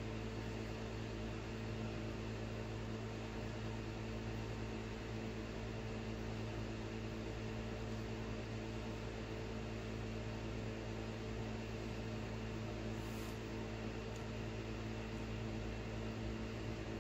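Steady low electrical hum of room background noise, made of several constant tones with a light hiss over it and no distinct knocks or scrapes.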